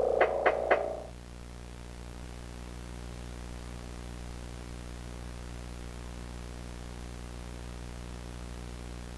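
A short run of music with quick plucked notes stops about a second in. A steady low electronic hum with a faint hiss follows.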